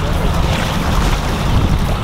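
Wind buffeting the microphone, a loud, steady low rumble, over the wash of the shoreline.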